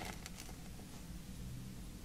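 Knife finishing a slice through a block of kinetic sand, the sand crumbling with a few soft crackles in the first half second. This is followed by faint rustling as the blade is lifted for the next cut.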